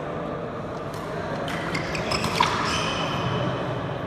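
Badminton rally on a wooden indoor court: sharp racket hits on the shuttlecock, the loudest a little past halfway, with brief shoe squeaks on the floor, over a steady background murmur of the hall.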